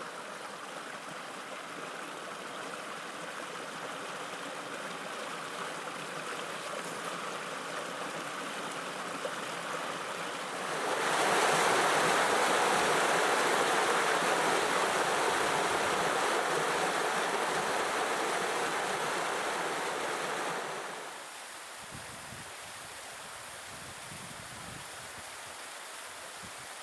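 Rushing water of Mount Fuji's seasonal 'phantom waterfall', fed by snowmelt: a steady rushing noise that swells louder about eleven seconds in and drops back about ten seconds later.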